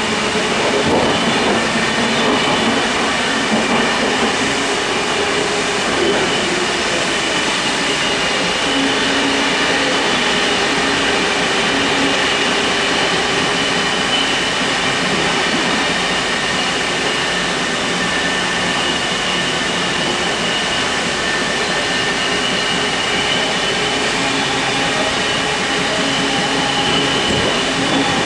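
Sydney Trains K-set double-deck electric multiple unit running, heard from inside the carriage's door vestibule: a steady running noise of wheels on rail, with steady high-pitched tones above it.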